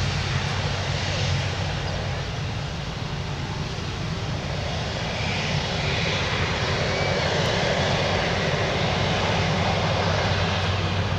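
Airbus A330-200 with Rolls-Royce Trent 700 jet engines rolling out along the runway after touchdown: a steady jet roar with a low hum beneath. It grows louder about halfway through.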